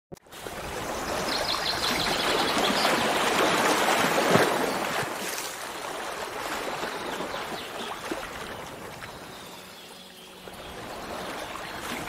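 Flowing water rushing steadily like a stream or waterfall. It swells in the first few seconds and eases down around ten seconds in. A bird gives a brief rapid trill between about one and three seconds in.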